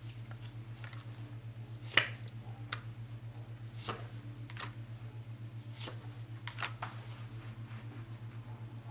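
Tarot cards being handled: a series of sharp card snaps and flicks, the loudest about two seconds in, over a steady low hum.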